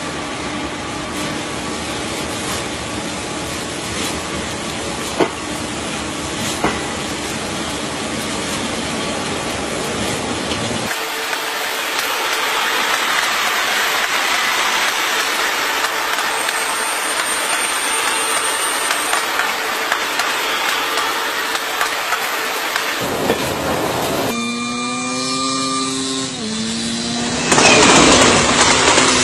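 Steady hiss of water spraying from an automatic train-wash gantry, with a commuter train rolling slowly through it. Near the end the sound cuts to a pitched tone that bends for about two seconds, then a louder rushing noise.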